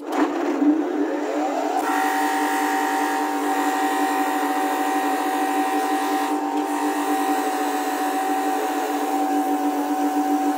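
Homemade bench grinder's electric motor with MDF wheels switched on, its hum rising in pitch over about two seconds, then running at a steady whine while an abrasive block is held against the spinning MDF wheel.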